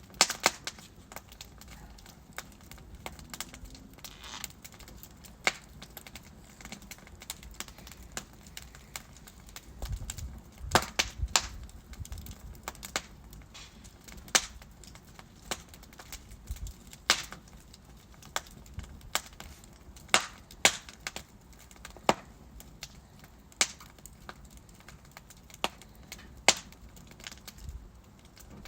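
Wood fire crackling in a fireplace: burning logs give irregular sharp pops and snaps, some loud, over a soft steady hiss and low rumble of the flames.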